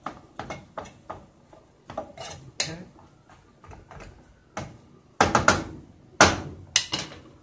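A wooden spoon stirring cabbage in a pot, knocking and scraping against the pan in a string of clicks, with a cluster of louder knocks a little past five seconds in and another about a second later.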